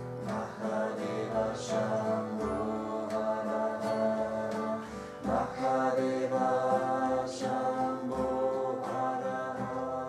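Devotional mantra song: voices singing held notes over strummed acoustic guitar.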